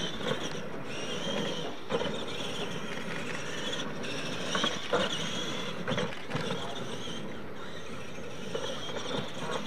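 Electric Clod Buster-style RC monster trucks racing on dirt: a high motor and gear whine that rises and falls with the throttle, with a few sharp knocks.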